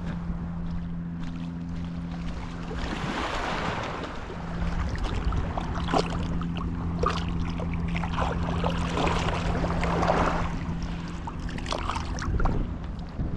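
Wind buffeting the microphone on a windy coast, under a steady low hum that drops out briefly about three seconds in, with scattered sharp clicks and rustles.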